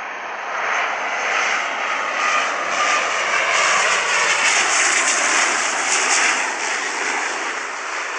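Fixed-wing aircraft engines passing: a steady, loud rushing noise that builds to a peak about halfway through and eases off near the end.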